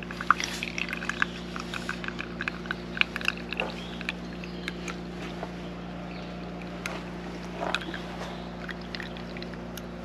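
Brewed coffee trickling and dripping through the mesh filter of a GSI Outdoors Ultralight Java Drip pour-over cone into a mug, with scattered small clicks and taps, most of them in the first few seconds. A steady low hum runs underneath.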